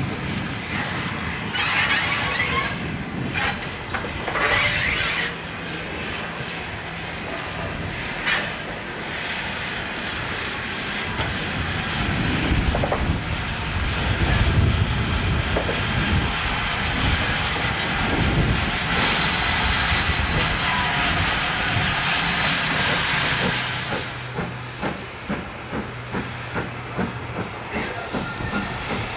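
Steam locomotive working, with bursts of steam hiss and a long loud hiss about two-thirds of the way in. Near the end it gives way to a quick regular beat.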